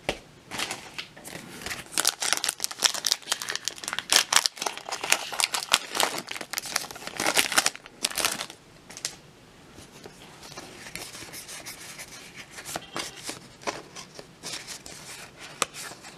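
A trading card booster pack's wrapper is crinkled and torn open, a dense run of sharp crackles for the first eight or nine seconds. Then comes softer, sparser rustling as the cards are taken out and handled.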